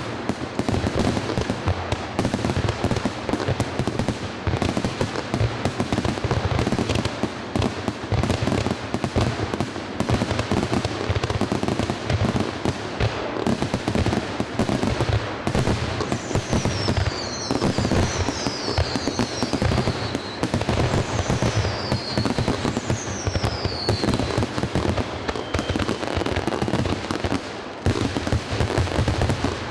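Fireworks barrage: aerial shells bursting in rapid, overlapping bangs and crackle. Past the middle, a handful of short whistles each fall in pitch.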